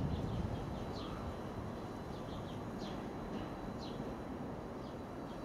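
Small birds chirping, short high notes that slide downward about once a second, over a steady outdoor background noise.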